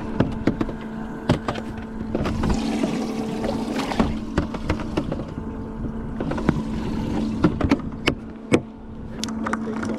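Knocks and clatter of a bass boat's livewell lid being lifted and handled as a tagged bass goes into the livewell, with a rushing hiss about two to four seconds in and a heavy thud of the lid near the end. A steady hum from the boat runs underneath.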